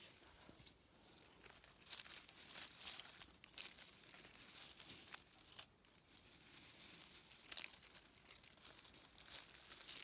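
Dry leaf litter crinkling and crackling under a hand brushing through it, in faint, irregular bursts.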